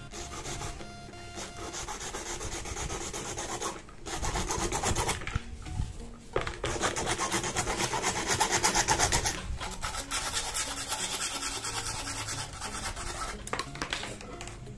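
PVC plastic pipe being cut by hand with a fast back-and-forth scraping that stops briefly three times.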